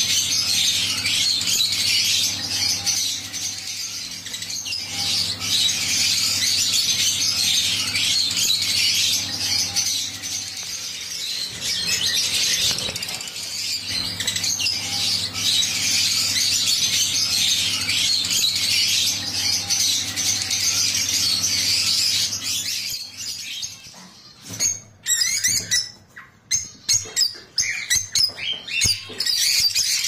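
A flock of caged lovebirds chattering and chirping together in a dense, continuous high-pitched din over a low steady hum. Near the end the din thins out into separate sharp chirps with short gaps between them.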